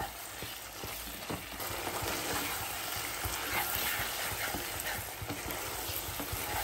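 Chicken pieces in masala and oil sizzling in a nonstick kadai while a metal spatula stirs them, with frequent short scrapes and taps against the pan. The dish is being cooked down on high flame until dry.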